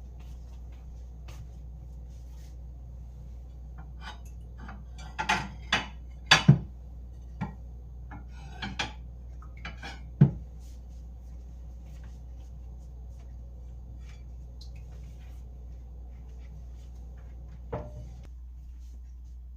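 A run of sharp clinks and knocks from hard objects being handled, bunched between about four and ten seconds in, with one more knock near the end, over a steady low hum.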